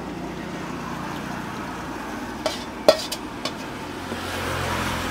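Ladle stirring a thickening gravy in a cooking pot, with a few sharp clinks against the pot about halfway through, over a steady low hum. Flour slurry is being stirred into the boiling gravy to thicken it without lumps.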